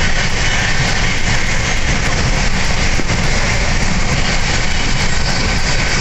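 Steady running noise of a moving passenger train heard from inside the coach, with wind rushing in through the open window.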